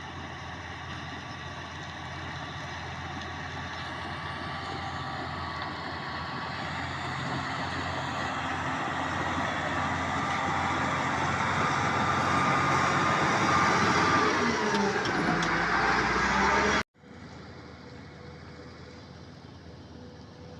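A heavy diesel construction vehicle's engine runs, growing steadily louder as it works closer, and its pitch falls slightly just before the sound cuts off abruptly about 17 seconds in. A quieter, steady engine rumble follows to the end.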